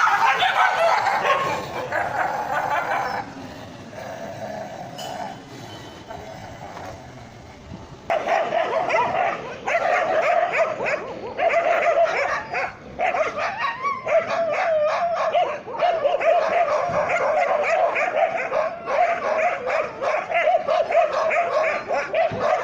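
Dogs barking and yelping in rapid, near-continuous bursts, as in a dog fight between a desi street dog and a pit bull; the calls drop back for a few seconds and then run on without a break from about a third of the way in.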